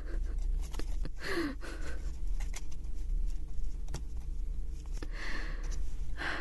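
Light clicks and taps of thin plywood 3D-puzzle pieces being handled and pressed together, with a couple of breathy sighs over a steady low hum.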